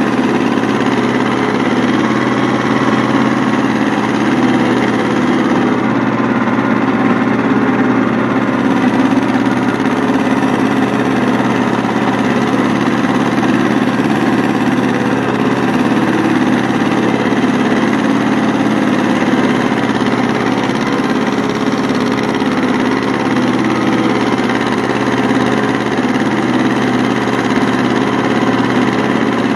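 Goldoni 926 tractor engine running steadily under load, driving a rear-mounted rotary tiller through the PTO shaft as it churns the soil.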